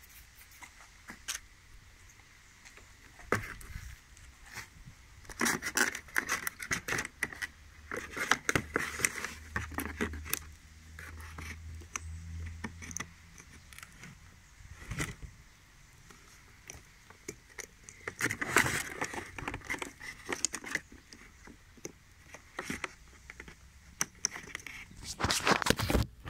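An angle grinder and its power cord being handled in a cardboard box: irregular rustling, scraping and clicking in several spells, the busiest one in the middle.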